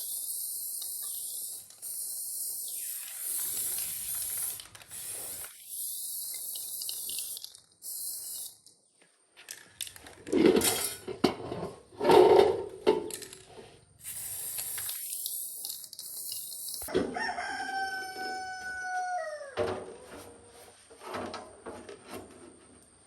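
A rooster crowing, ending in one long crow a few seconds before the end that holds its pitch and then drops away. Louder sounds come through in the middle, over a steady high hiss.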